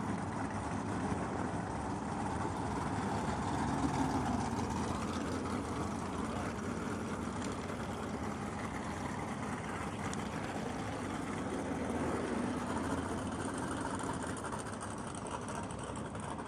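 Engines of several old muscle and drag cars idling and running together during warm-up, a steady rumble that swells briefly about four seconds in and again near the middle.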